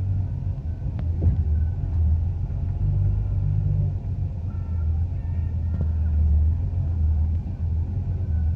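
Off-road jeep's engine and drivetrain rumbling steadily as it drives along a rough dirt track, heard from inside the vehicle. A single sharp knock comes about a second in.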